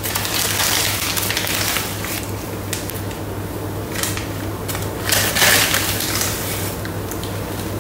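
A large paper sack rustling and crinkling as a hand reaches in and scoops from it. The rustling comes in bursts, loudest about a second in and again around five seconds in, over a steady low hum.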